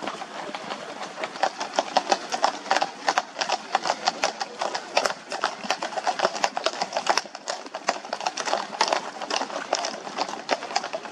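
Hooves of a group of horses clip-clopping in a dense, irregular clatter as the riders pass, growing busier about a second in.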